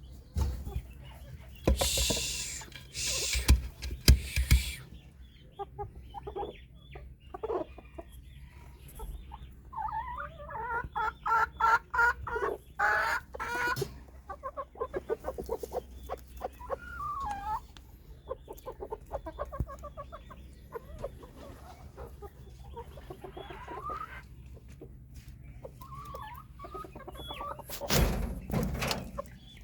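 White Silkie chickens clucking in a string of short calls, with loud noisy bursts near the start and again near the end.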